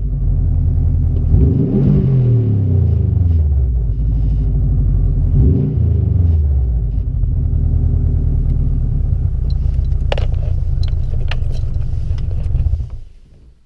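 Subaru Impreza WRX's turbocharged EJ20 flat-four, with unequal-length headers and an aftermarket BE FREE muffler, heard from inside the cabin. It is revved twice in neutral, each rev rising and falling back, then settles into a steady idle with the uneven boxer rumble, and fades out near the end.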